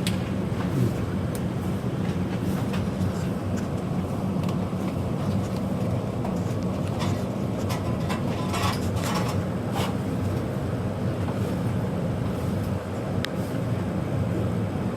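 Steady low rumble and hum of several gas water heaters firing at full heat, with a few light clicks about two-thirds of the way through.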